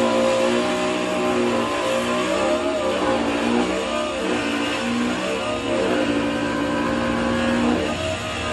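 Background music: held notes that change pitch every second or so, over a steady hiss.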